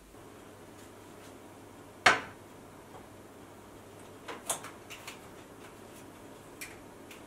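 A metal frying pan set down on an electric stove's hob with one sharp clank about two seconds in, followed by a few light clicks as the stove's control knob is turned.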